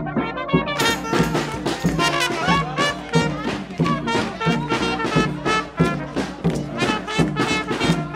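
Brass band playing a jazzy, swing-style tune with trumpet and trombone over a steady beat.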